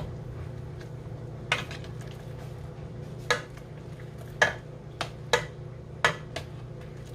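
A utensil knocking and clinking against a cooking pot, about seven sharp knocks at uneven intervals, over a steady low hum.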